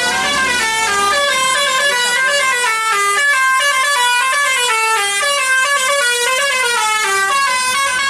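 Bus telolet horn, a basuri-style multi-tone air horn, playing a fast melody of short notes that step up and down without a break, often two notes sounding together.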